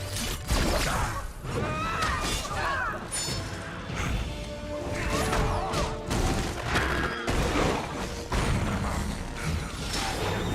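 Action-film fight sound effects: a dense run of hits, crashes and smashes, with short squealing glides, over background music.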